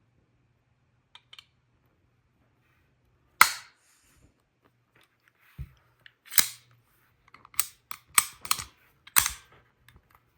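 Cobratec out-the-front automatic knife being worked after reassembly: sharp metallic snaps as the blade fires and retracts. About seven clicks, the loudest about three seconds in, with a duller knock near the middle and a quick run of snaps after it.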